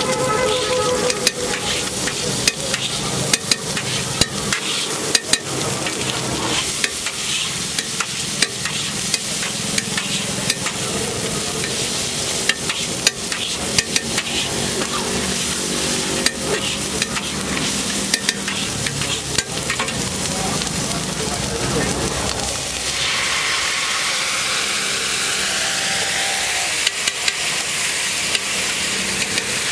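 Egg masala sizzling on a large flat iron griddle while a long metal spatula chops and scrapes it, with frequent sharp clacks of the blade on the iron. About 23 seconds in, a louder hissing sizzle starts as liquid meets the hot griddle and sends up steam.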